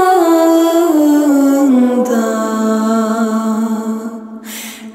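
A woman singing a Turkish lullaby slowly, one long vowel stepping down in pitch to a low held note, with a short breath near the end.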